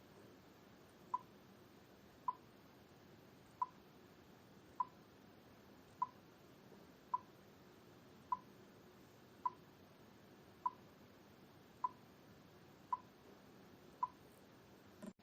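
A camera's self-timer beeping, twelve short high beeps at an even pace of about one a second, counting down to the shutter release.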